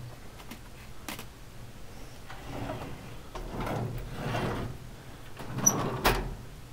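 Objects being rummaged through and handled: scattered light clicks and knocks with sliding, rustling noise, and a sharper knock near the end.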